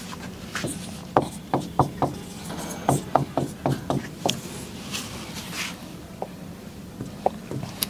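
Stylus tapping and scratching on a smart-board screen during handwriting: a quick irregular run of short taps and brief scraping strokes.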